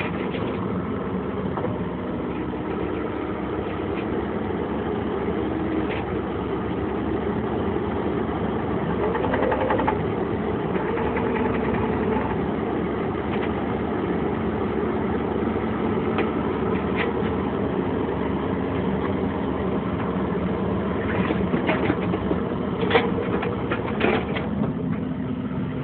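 Bobcat E55 midi excavator's Doosan diesel running steadily while the boom, arm and bucket are worked, its note shifting under hydraulic load about ten seconds in. A few sharp knocks near the end.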